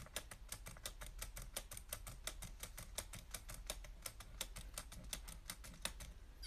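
A rapid, somewhat irregular run of faint light clicks, about seven a second, like typing.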